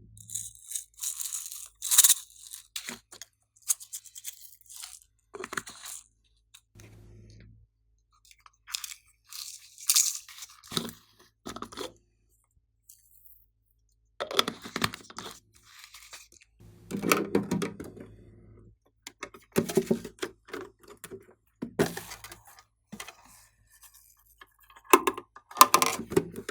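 Slime being squished and stretched by hand, giving irregular bursts of sticky crackling and popping with short quiet gaps between them.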